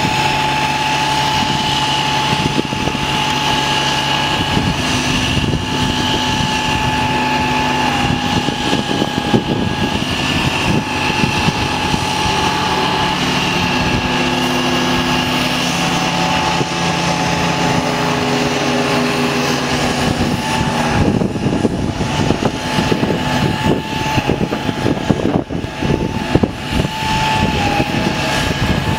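Heavy wrecker's diesel engine running steadily under load, with a high hydraulic whine, as it powers the boom and winch lines pulling on a rolled-over cement truck. About twenty seconds in, the low engine drone drops away and rougher, uneven noise takes over.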